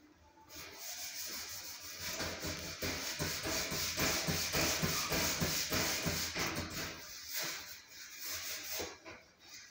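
Scrubbing inside a commercial oven's metal cavity: quick back-and-forth rubbing strokes that build up after the first second and ease off near the end.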